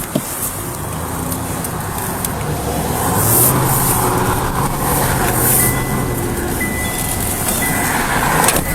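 Car on the move: steady engine and road noise, growing louder about three seconds in.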